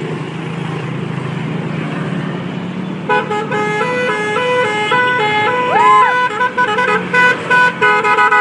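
A vehicle engine running, then from about three seconds in an angkot's multi-tone 'telolet' musical horn playing a quick tune of short stepping notes, with one swoop up and back down in pitch near the middle.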